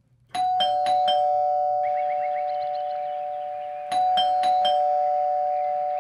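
Bell-like chime: a quick run of struck notes that settles into two steady ringing pitches and slowly fades, then a second run of strikes about four seconds in that rings on the same way.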